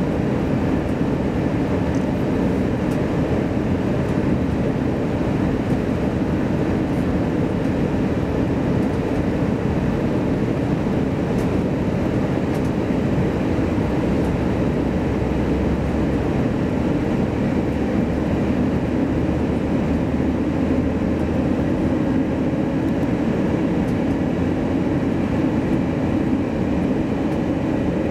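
Steady cabin noise inside an airliner descending on final approach: jet engine and airflow noise, an even low drone with a faint steady whine above it.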